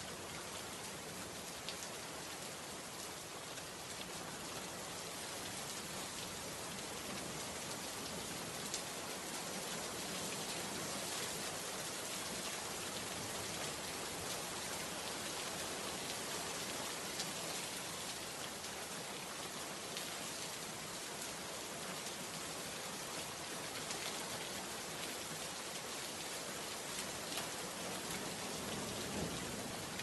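Steady, even hiss of noise with faint scattered ticks.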